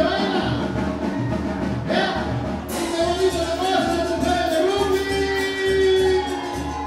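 Latin dance music with singing over a steady bass beat.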